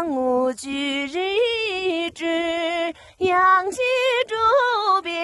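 A woman singing unaccompanied in long, held notes with wavering ornaments, in several phrases with short breaks between them.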